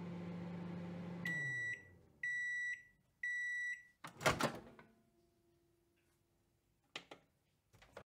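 Microwave oven finishing its cycle: the running hum winds down about a second in, then three evenly spaced end-of-cycle beeps. Next comes a loud clunk as the door is opened, with a couple of small clicks near the end.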